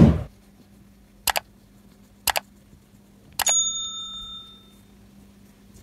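Subscribe-button animation sound effects: a short whoosh, two quick double mouse clicks about a second apart, then a click with a bright bell ding that rings out for about a second.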